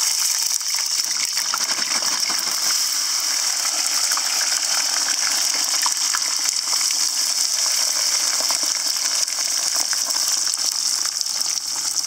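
Frozen crinkle-cut fries deep-frying in hot oil in a cast iron skillet: a loud, steady hiss of vigorous bubbling with scattered small crackles.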